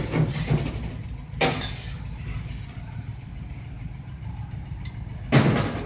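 A vehicle engine running steadily as a low rumble, with two short noisy bursts: one about a second and a half in and one near the end.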